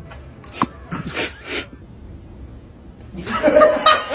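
A few short sneeze-like bursts about a second in, then laughter in quick rhythmic pulses from about three seconds in.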